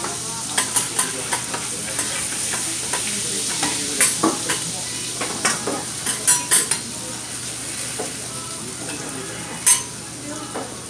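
Oil and meat juices sizzling on a steel teppan griddle as metal spatulas scrape and clack against the plate. Sharp clacks come thick through the first seven seconds, then one louder clack near the end.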